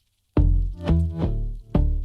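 Electronic music: a brief silence, then short, bass-heavy synth notes in a pulsing pattern, about two a second.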